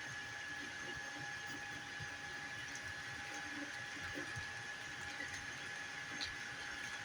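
FDM 3D printer running: a steady high whine over a hiss, with faint irregular ticks and short motor movements.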